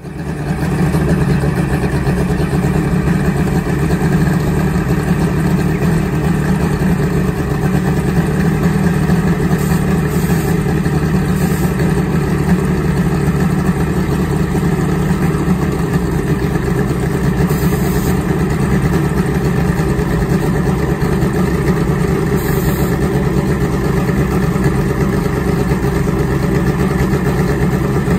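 Turbocharged Suzuki Hayabusa drag bike's inline-four engine idling steadily, with no revs.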